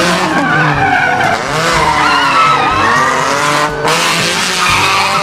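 Car engine revving with tyres squealing and skidding, like a racing-car sound effect; the pitch slides up and down throughout.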